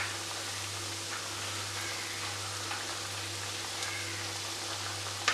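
Vermicelli vadas deep-frying in hot oil in a pan: a steady, even sizzle and crackle of bubbling oil.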